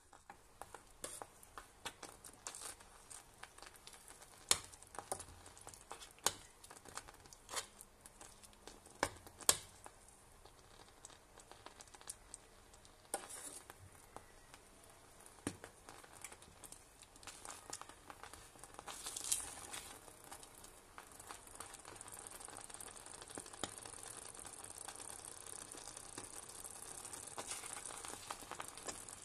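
Creamed spinach sizzling in a pan as a spoon stirs it. Scattered sharp pops in the first half give way to a steady sizzle that grows louder toward the end.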